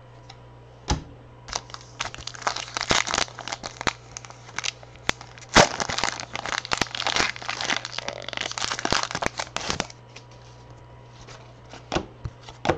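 Trading-card pack wrappers being torn open and crumpled: a dense run of crinkling and crackling from about a second and a half in until about ten seconds in, then a few light clicks.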